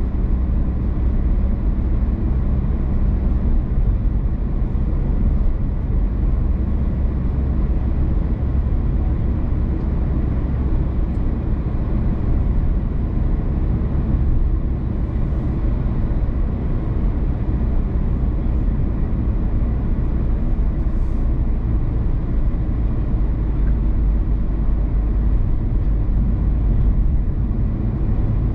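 A car driving along a road: a steady low rumble of tyre and engine noise with no changes.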